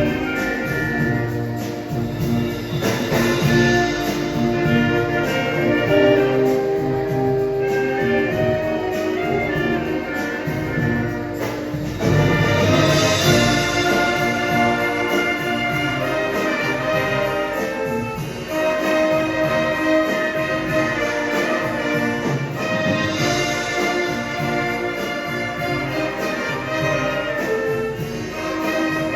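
A marching showband playing a Manila Sound medley live: brass with drums and percussion keeping a steady beat, getting louder and brighter about halfway through.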